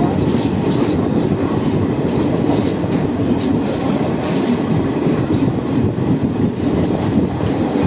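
Passenger train running along the track, a steady noise of wheels on the rails with a few faint knocks.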